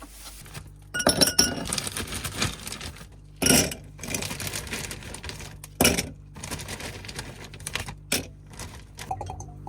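Tableware clinking and knocking: a ringing clink with a rattle of small clicks about a second in, then single sharp knocks every two to three seconds.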